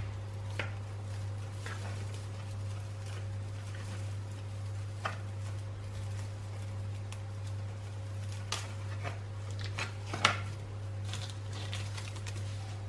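Scattered light clicks and clinks of small hard objects being handled, a few sharper ones about five, eight and a half, and ten seconds in, over a steady low hum.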